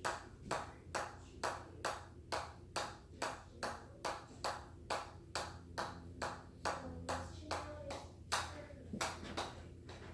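A ball bouncing on a hammer head: sharp ringing taps a little over two a second in a steady rhythm. Near the end the rhythm falters and the taps stop as the ball runs away.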